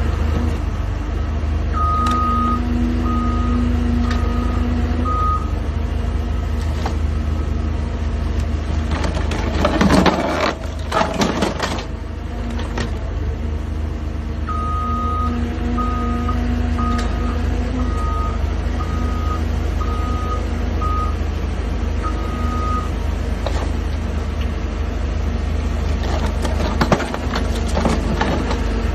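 Engine of a rail work machine running steadily, with a backup alarm beeping about once a second in two spells. A loud, rough noisy burst comes about ten seconds in and again near the end as the hydraulic track attachment works the rail.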